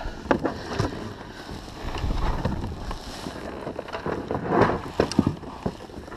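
Handling sounds on a plastic kayak: scattered knocks, clicks and rustling as a landing net holding a snook is lifted aboard and gear is moved about, with a cluster of knocks near the end. Wind rumbles on the microphone about two seconds in.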